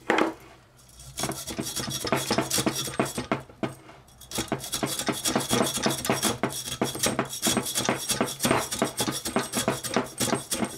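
Hacksaw cutting through the copper wire windings of a small electric motor's stator held in a vise: quick back-and-forth strokes of metal rasping on copper, with a brief pause about four seconds in.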